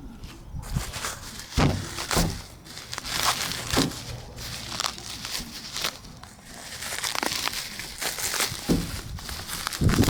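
Packaging crinkling and rustling as it is handled and opened, with irregular clicks and knocks.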